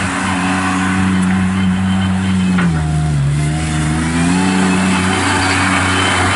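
Kubota diesel engine of an Avant 420 mini articulating loader running at steady speed. Its pitch sags briefly about three seconds in, then climbs back.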